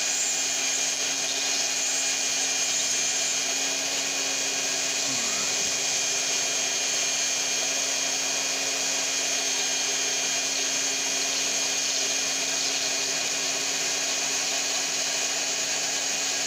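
Handheld rotary tool running steadily with a diamond bit, wet-grinding into mudstone; a constant high whine.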